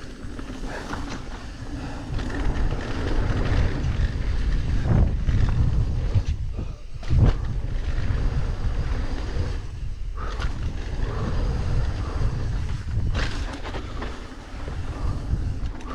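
Mountain bike descending a dirt flow trail: a heavy rumble of wind on the camera's microphone and tyres rolling over loose dirt, with a few sharp thumps and rattles as the bike hits bumps and jumps, the loudest about seven seconds in.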